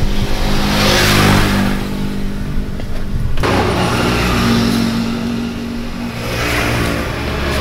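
A motor vehicle engine running and revving, with a short break about three and a half seconds in.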